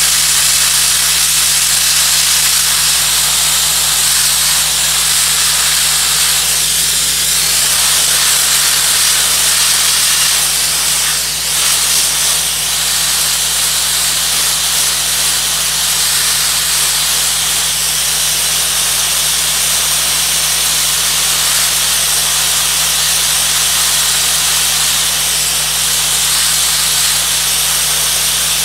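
Dustless wet abrasive blaster nozzle spraying water and abrasive onto asphalt as a loud, steady hiss, stripping spilled paint, with a steady low hum underneath.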